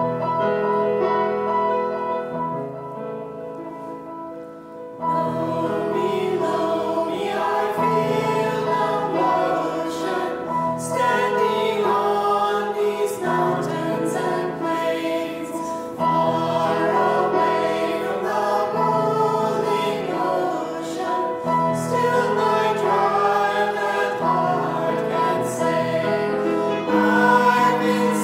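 A grand piano plays a quiet introduction. About five seconds in, a small choir of men's and women's voices comes in singing a hymn, with the piano accompanying.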